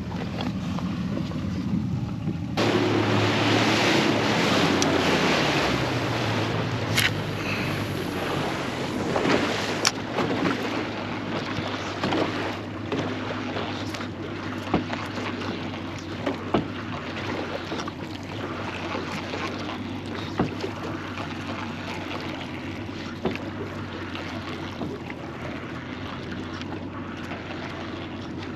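Small boat underway with its motor running as a steady low hum, under wind buffeting the microphone and water rushing past the hull, with scattered knocks.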